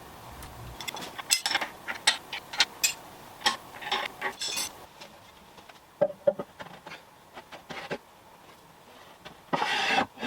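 Metal parts clinking and knocking together as they are handled: a quick run of sharp clinks for a few seconds, a couple of ringing taps about six seconds in, then a short scrape near the end.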